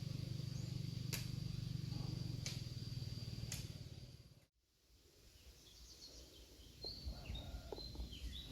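Outdoor ambience: a steady low hum with a thin high steady tone and a few sharp clicks, which cuts off abruptly partway through; after it, a quieter background with short bird chirps near the end.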